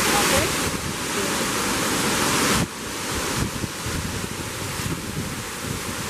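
Steady rush of a tall waterfall pouring onto rocks, with wind buffeting the microphone in uneven low rumbles. The water noise drops suddenly about two and a half seconds in.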